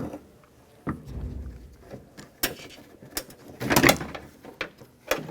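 Hand-fitting clicks and knocks of a door lock actuator and its lock rods being worked into place inside a car door shell: scattered sharp clicks, a dull thump about a second in, and a louder clatter a little before the end.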